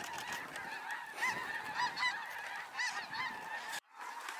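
A large flock of snow geese calling overhead: a dense chorus of many overlapping short, high honks. The sound cuts out for an instant near the end, then the chorus goes on.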